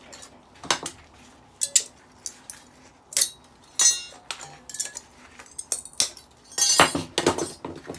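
Small metal parts of a decking light (stainless steel and aluminium) clinking and clattering as they are pulled apart, handled and dropped, a dozen or so separate sharp clinks, some ringing briefly, bunching together near the end.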